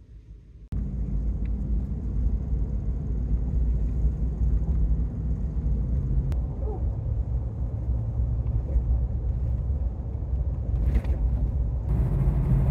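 Steady low rumble of road and engine noise inside a pickup truck's cab while driving, starting about a second in after a brief quieter moment.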